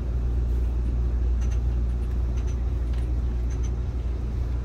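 Steady low rumble and hum inside an Amtrak passenger car as the train creeps backward along the station platform, with a few faint high clicks.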